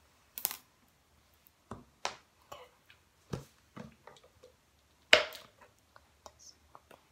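Scattered clicks and taps of hands handling small objects right by the phone's microphone, with one louder knock about five seconds in.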